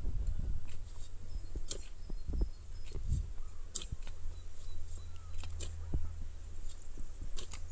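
Hand hoes chopping into loose garden soil, with scattered soft thuds and clicks, over a steady low rumble on the microphone.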